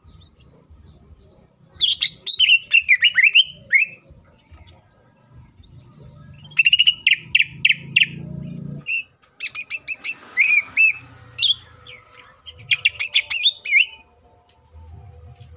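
A male cucak ijo (green leafbird) singing loud bursts of quick, sweeping and repeated high notes. Its varied song is full of isian, fill-in phrases taken from other birds. There are four bursts with short pauses between them.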